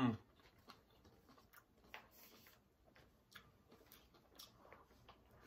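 Faint chewing of a mouthful of grilled chicken and bacon sandwich: soft, scattered mouth clicks and smacks, just after a brief hummed "mmm" at the very start.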